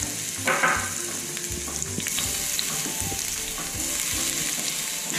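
Finely chopped garlic frying in hot olive oil: a steady sizzle, with a few light clicks.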